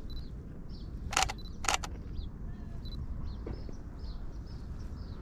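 Canon 90D DSLR shutter firing twice, about half a second apart, each a quick mechanical clack of mirror and shutter.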